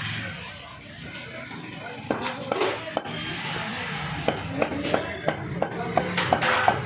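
A knife chopping boneless chicken on a wooden cutting board: a few scattered chops, then a steady run of quick chops at about four a second.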